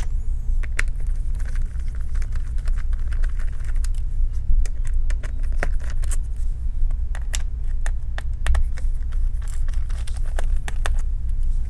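Small Phillips screwdriver backing out a laptop battery's retaining screws: scattered light clicks and ticks of the bit and screws, over a steady low hum.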